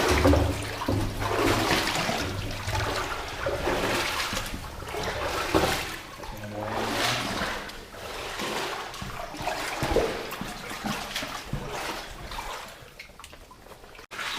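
Footsteps wading through shallow water in a flooded tunnel, each stride a slosh and splash, about one a second.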